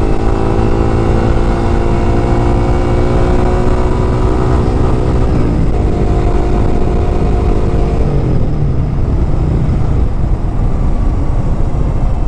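Yamaha YZF-R15's single-cylinder four-stroke engine running on the move, with wind noise on the microphone. The engine note holds steady, then falls about five seconds in and again about eight seconds in as the revs drop.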